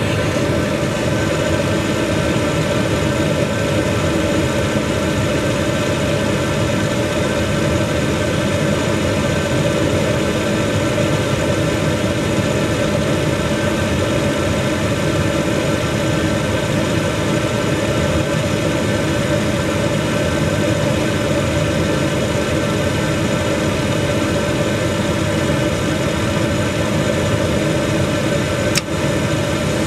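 HVAC unit running steadily: an even mechanical hum with several steady tones.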